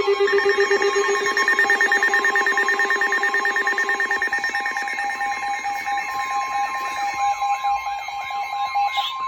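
Several weather radio receivers sounding their alert alarms at once for an incoming flash flood warning: overlapping rapid pulsed beeping at a few different pitches. About six seconds in, the long steady weather radio warning tone and a warbling alarm join in.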